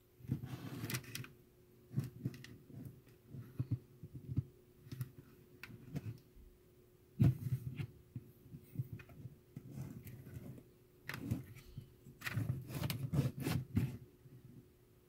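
Handling noise: irregular knocks, clinks and rustles as a small model tank's aluminum hull, with its chain-drive sprockets, is lifted and turned over among loose cement rubble and wood splinters. A faint steady hum runs underneath.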